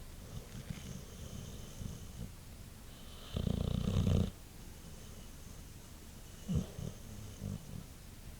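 Boxer dog snoring in its sleep: one loud snore lasting about a second, a little over three seconds in, with a shorter, sharper one about six and a half seconds in and softer breaths between.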